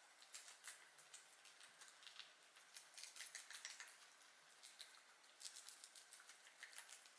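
Guinea pigs chewing carrot and lettuce: faint, rapid, crisp crunching clicks in uneven runs.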